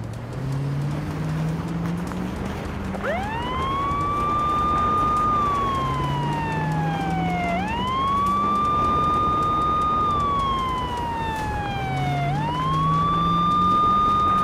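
Police car siren wailing, starting about three seconds in. Each cycle climbs quickly, holds high, then slides slowly down before starting again, repeating roughly every four and a half seconds. Underneath, a low tone rises in steps three times.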